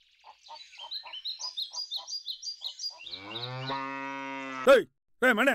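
A small bird chirping in a quick repeated run of high notes, then a cow lowing in one long steady moo that bends in pitch as it ends, followed by a few short loud calls just before the end.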